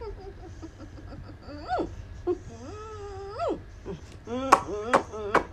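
Pit bull whining and moaning: a short rising whine, then a longer held moan that lifts at the end, then a quick run of short whimpering cries near the end.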